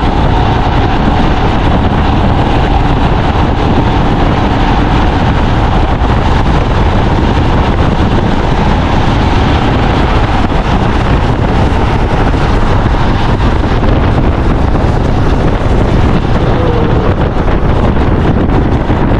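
Wind steadily buffeting the microphone on a moving motorcycle, over the engine and road noise.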